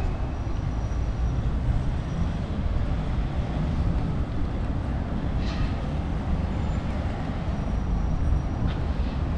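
Steady low rumble of city road traffic at a busy junction, with two faint brief higher sounds partway through.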